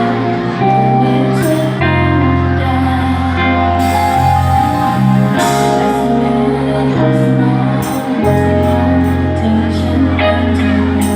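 Music with sustained bass and held chords, with singing.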